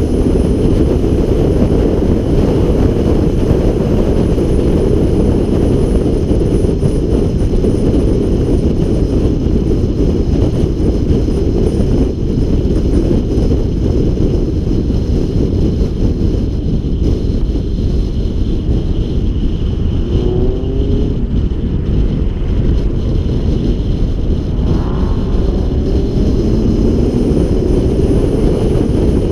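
Car driven at speed on a race track: a steady, loud rush of wind and road noise with a low rumble and the engine running underneath. Brief rising engine notes come twice, about twenty and twenty-five seconds in.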